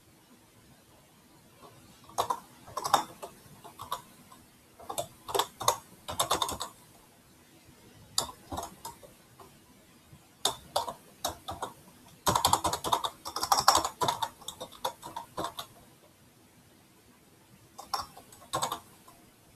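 Computer keyboard typing in short bursts of keystrokes with pauses between them; the longest, densest run of keys comes about midway.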